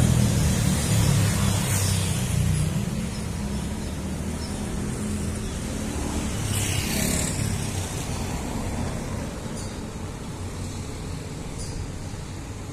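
Road traffic: a vehicle's low rumble that fades over the first few seconds, then a steady traffic background with a brief hiss about seven seconds in.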